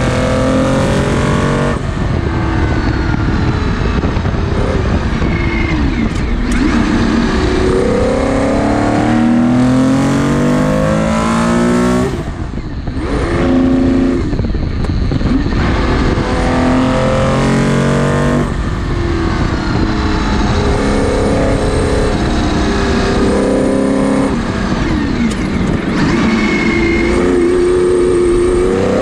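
Porsche 917/10's flat-12 racing engine heard from the cockpit at full throttle, its note climbing and dropping back again and again as it is shifted up through the gears. About twelve seconds in it lifts off briefly, the note falling, before pulling hard through the gears again.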